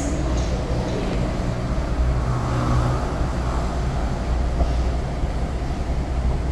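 C751B MRT train running away along the elevated track, a low rumble that dies away after about three seconds into a steady low hum of the surrounding city.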